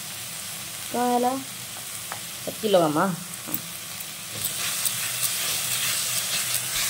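A tomato and mustard-paste curry sizzling in an iron kadai, with a spatula stirring and scraping through it from about halfway, when the sizzle grows louder and fills with small clicks. Two short voice-like calls sound about one and three seconds in.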